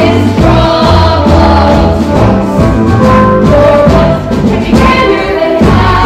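A musical-theatre song from a live stage show: band accompaniment with a strong bass line under a chorus of ensemble voices.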